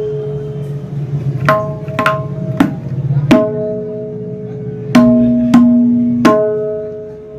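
A-sharp tabla (dayan) struck about seven times in single strokes, each note ringing on with a clear, sustained pitch and overtones. Its syahi is not yet fully built up. A low bass resonance sounds underneath through the first half.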